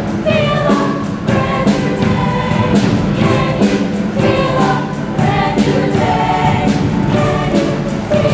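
A show choir singing together over musical accompaniment with a steady beat.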